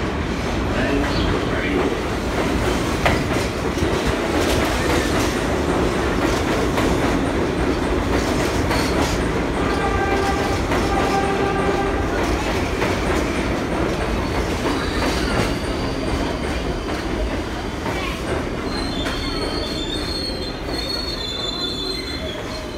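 New York City subway R62A train on the 1 line pulling into the station, with a steady rumble of wheels on rail. The wheels squeal partway through, and a higher squeal comes near the end as it slows.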